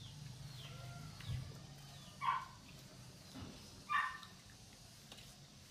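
A dog barking twice, two short barks about a second and a half apart.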